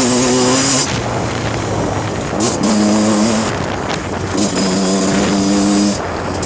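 1991 Kawasaki KX125 two-stroke single-cylinder motocross engine being ridden, the throttle opened and closed in bursts. The exhaust note falls off about a second in. It climbs and holds twice, dropping between the pulls and easing off again near the end.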